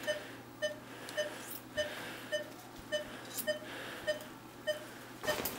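Surgical patient monitor beeping steadily in time with the anaesthetised dog's pulse, a little under two short beeps a second, with a few faint clicks.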